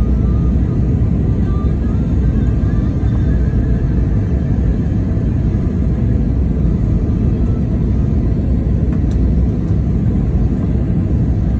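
Steady, loud cabin noise of an Airbus A320neo airliner in flight: a deep, even rumble of engines and airflow heard from a window seat inside the cabin.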